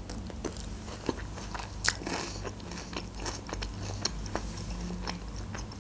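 Close-up chewing of a mouthful of Caesar salad, with lettuce and croutons giving irregular crisp crunches several times a second.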